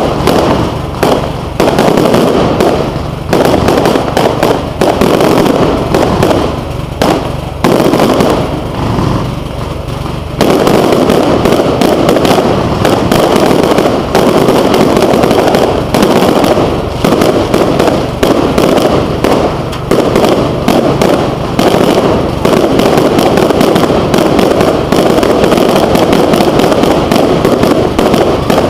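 Aerial fireworks display going off overhead: rapid, loud bangs and crackling bursts. They come in quick groups with short pauses for about the first ten seconds, then merge into a continuous dense barrage.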